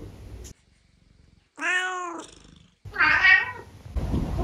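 Domestic cats meowing: one meow about one and a half seconds in, a louder one about a second later, and a third starting near the end, each rising then falling in pitch.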